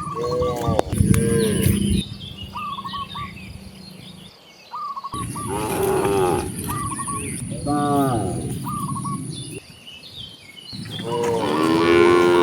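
Cattle mooing: about four drawn-out moos spread through, the longest and loudest near the end.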